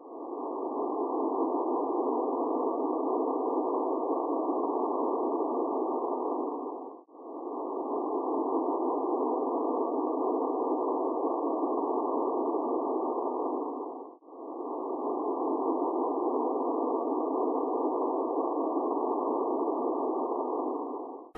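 A steady, muffled hiss like filtered static, played three times over in stretches of about seven seconds that each fade in and fade out.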